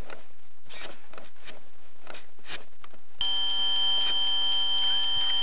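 Scattered light clicks and knocks, then about three seconds in a steady, high-pitched electronic buzz starts abruptly and holds without change.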